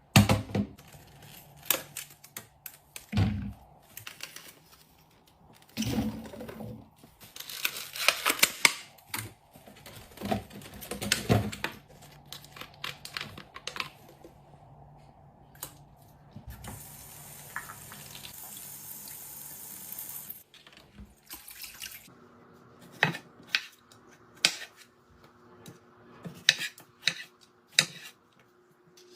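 Fridge-restocking handling sounds: plastic and glass containers and packaging clicked, knocked and set down one after another, with a few seconds of liquid running or being poured about two-thirds of the way in.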